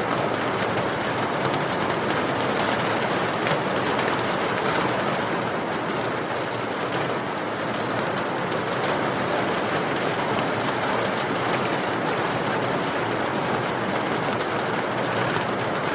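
Steady rain pouring, with faint small crackles from a wood fire burning in a fireplace.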